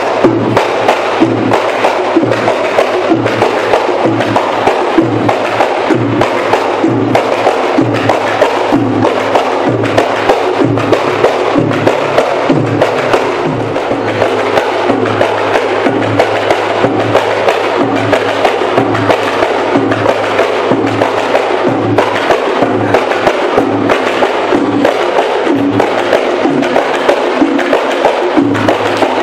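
Music with a busy, steady percussion beat.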